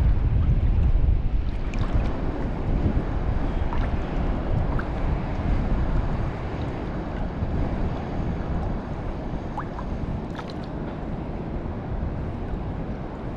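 Steady low rushing noise of wind and moving river water, easing off slightly about six seconds in, with a few faint clicks.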